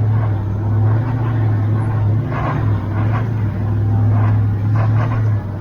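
Truck engine running steadily at low revs, heard from inside the cab, as the truck crawls over a rough, bumpy road. There are a few light knocks and rattles, and the engine note eases slightly near the end.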